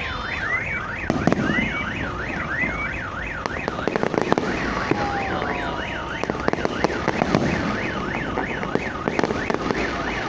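A car alarm siren cycles through its tones, first a repeated rising whoop and then, after about three seconds, a fast up-and-down warble. Fireworks bursts bang and crackle at scattered moments over it.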